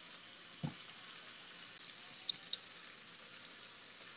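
Mahi mahi fillets searing in olive oil in a skillet: a steady sizzle with fine crackles, two sharper pops a little over two seconds in, and a brief light knock under a second in.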